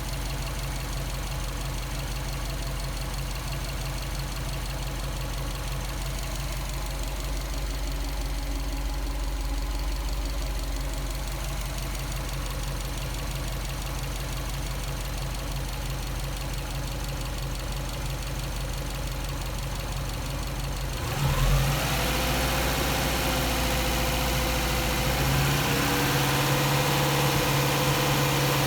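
Subaru EJ207 turbocharged flat-four idling steadily while warming up. About three-quarters of the way through the sound changes suddenly, growing a little louder with a broad hiss coming in.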